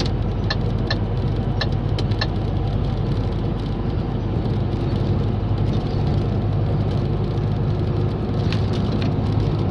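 Engine and tyre noise of a vehicle driving along a highway: a steady low rumble, with a few light clicks in the first couple of seconds and again near the end.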